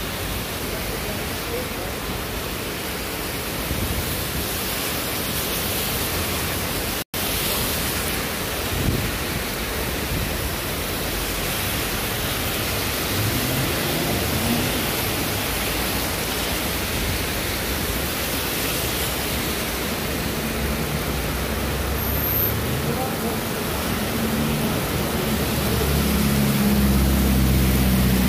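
Heavy rain pouring onto a paved street and sidewalk, a steady hiss, with cars driving past through the water on the wet road. Near the end a vehicle's engine hum grows louder as it passes close.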